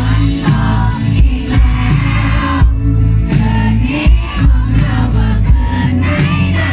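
Live pop-rock band playing through a PA system: a male voice singing a melody over bass, keyboard and a steady drum beat.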